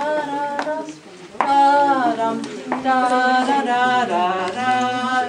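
A woman singing a dance tune without words on long held notes, giving the dancers the melody to move to.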